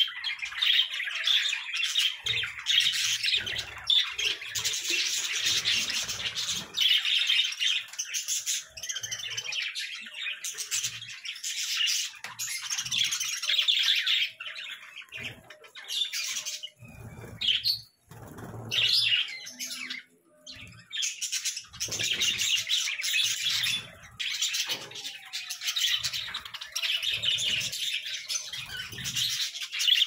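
A flock of budgerigars chattering and chirping, many birds at once in a dense, continuous warble that thins briefly a little past halfway.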